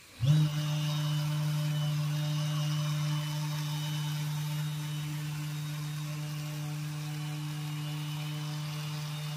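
Corded electric random orbital sander switched on about a quarter second in, spinning up quickly, then running with a steady motor hum as its pad works over an epoxy resin tabletop to polish it.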